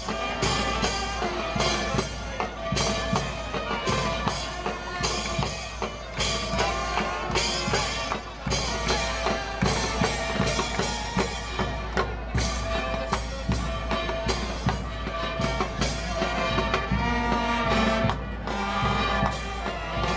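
Band music with brass and drums, a steady beat of about two drum strikes a second under held brass notes.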